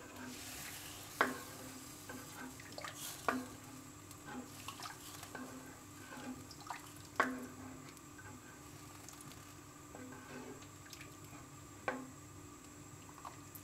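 Spatula stirring a watery soup in a pan: faint sloshing of the liquid, with a few light knocks of the spatula against the pan.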